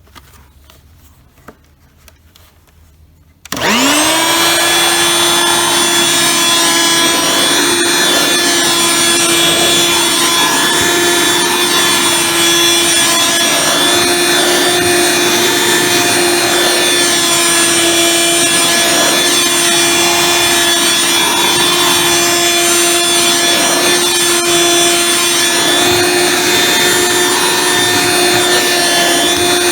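Corded, bagged Dirt Devil handheld vacuum cleaner switched on about three and a half seconds in: its motor whine rises quickly and then runs steadily as it is worked over carpeted stairs. A few faint clicks come before it starts.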